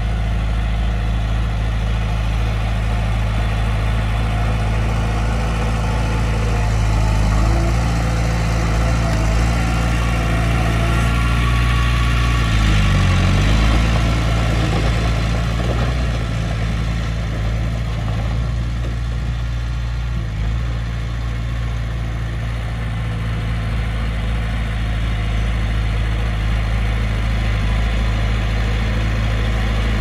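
Bulldozer's diesel engine running steadily with a low, even note. About halfway through, its speed dips briefly and then comes back up.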